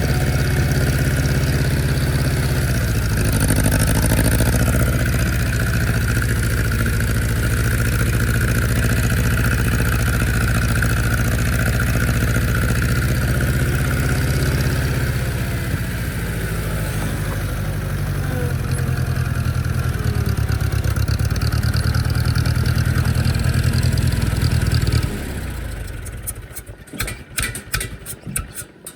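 Old farm machine's engine running loud and steady, then shut off near the end, turning over a few last, slowing times as it dies.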